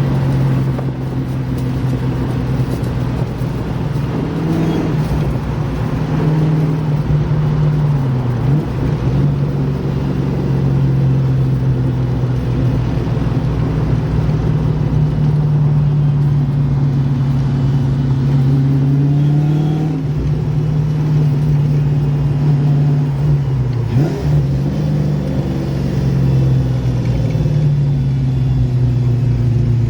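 1989 Ford Mustang (Fox body) engine pulling the car along at a mostly steady pitch. The pitch dips briefly three times, once after a slow climb, as the car shifts gears or the throttle comes off.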